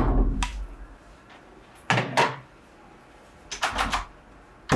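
Sharp thuds and knocks separated by quiet: a heavy thud at the start, a pair about two seconds in, then a quick run of knocks on a wooden door near the end.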